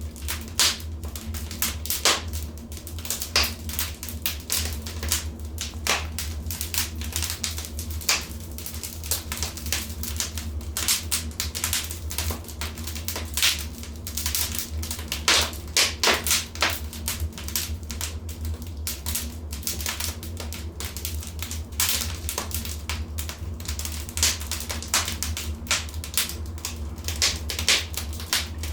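Wood fire crackling in a fireplace: dense, irregular pops and snaps, some louder than others, over a steady low rumble of the flames.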